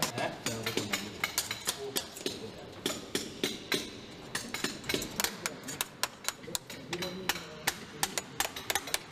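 Hand hammer striking stonework in quick, irregular taps, several a second, with low voices underneath.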